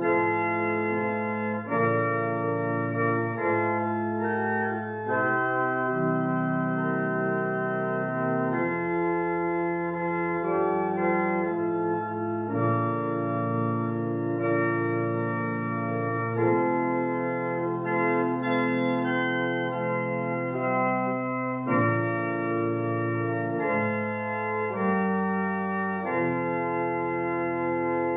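Organ playing a postlude in slow, held chords that change every second or two.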